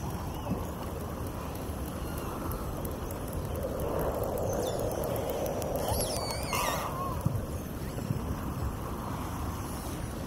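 Field-recording ambience of natural sound: a steady rushing noise that swells about four seconds in, with a few short high gliding calls around six to seven seconds in.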